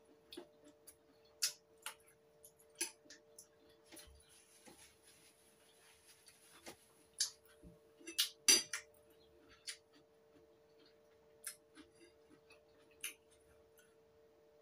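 Metal fork and spoon clinking and scraping against a ceramic bowl while noodles are tossed with sauce: scattered irregular clinks, the loudest cluster about eight seconds in. A faint steady hum runs underneath.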